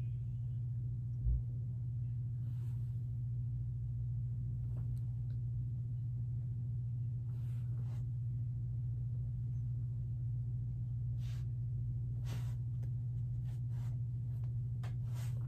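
A steady low hum, with a soft low thump about a second in and a few faint, short rustles or breaths scattered through.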